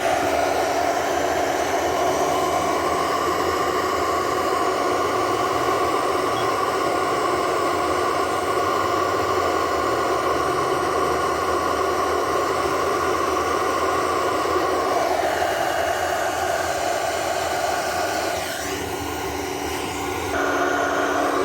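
Handheld Hot Rod induction heater running: a steady hiss with a held whine, the whine's pitch shifting and gliding twice in the second half.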